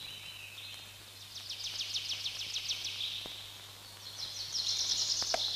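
Wild forest ambience: a high-pitched rapid trill of about ten strokes a second, heard twice, each time for a second or two.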